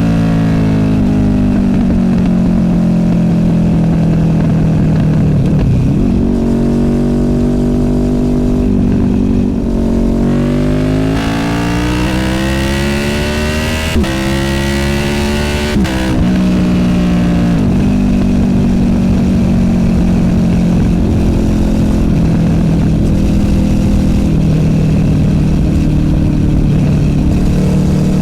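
Honda VFR800F V4 VTEC engine through an SC Project Conic exhaust while riding. The engine note falls as the bike slows, holds, then climbs hard under acceleration midway with two quick gear changes, drops back, and settles into a steady cruise.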